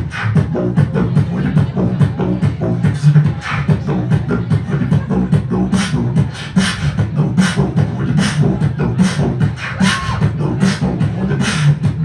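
Human beatboxing amplified through PA speakers: a fast, steady beat of vocal drum sounds over a continuous low bass hum, in the style of electro house club music.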